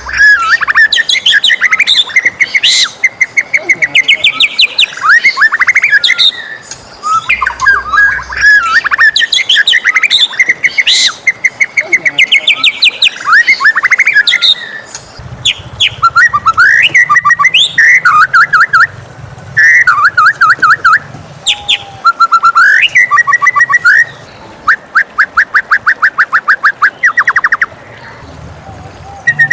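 White-rumped shama singing a loud, varied song of sliding whistles and long, fast rattling trills of repeated notes, with brief pauses between phrases.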